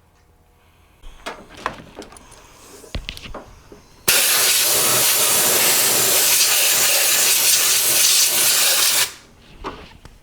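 Compressed air blasting from an air blow gun, a loud steady hiss that starts suddenly about four seconds in and cuts off about five seconds later, blowing dirt out of the spark plug wells so no debris falls into the cylinders. A few light knocks and clicks of handling come before it.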